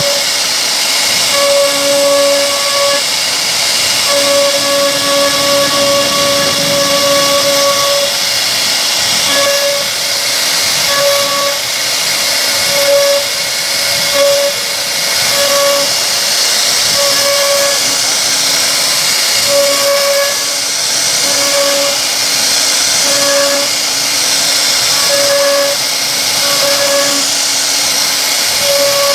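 CNC router carving a solid wood door panel: a steady high hiss of the spindle and cutter in the wood, with a whine that cuts in and out every second or two as the machine moves.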